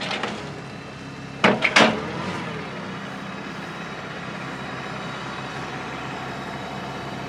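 Farm tractor engine running steadily, a constant mechanical hum. Three loud, sharp sounds follow in quick succession about one and a half seconds in.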